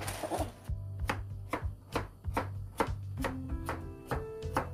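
Kitchen knife slicing through a Korean radish onto a plastic cutting board: an even series of sharp chops, about two or three a second, over background music.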